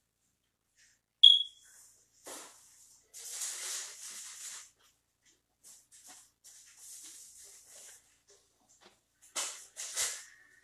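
Off-camera household noises while someone fetches a drink of water. About a second in there is one sharp, high ringing ping, the loudest sound. Several short stretches of hiss follow.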